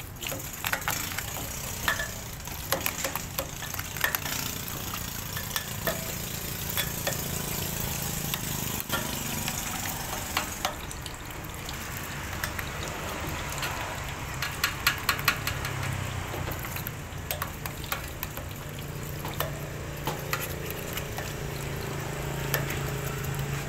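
Water poured from a plastic dipper into the open screw chamber of a stainless-steel coconut milk press, splashing over the screw and housing. Clusters of sharp clicks and scrapes come from the dipper and hands against the metal as the press is rinsed out.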